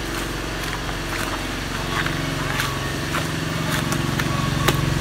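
A motor running steadily, its hum getting a little louder about two seconds in, with scattered sharp clicks and knocks over it.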